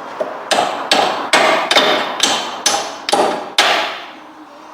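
Hammer striking metal on a car's front suspension fixings while a bottom link is removed, about eight ringing blows at roughly two to three a second, then stopping. A steady hiss runs underneath.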